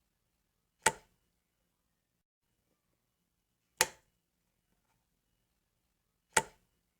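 A light switch flicked three times, each flick a single sharp click, a few seconds apart.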